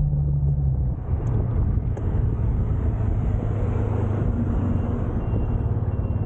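Motor scooter being ridden along a road: a steady low rumble of its engine mixed with wind and road noise.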